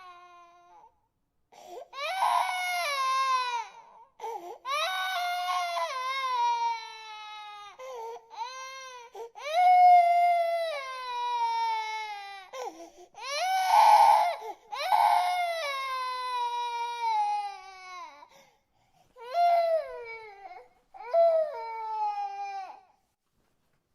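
Infant crying: a run of about nine wails, each one to three seconds long and mostly sliding down in pitch, broken by short gaps.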